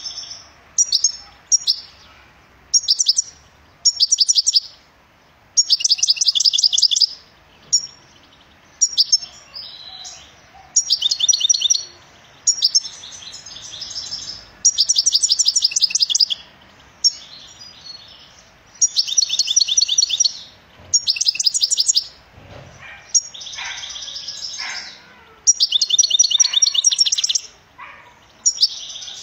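European goldfinch singing: bouts of rapid, high notes, each half a second to two seconds long, with short pauses between them.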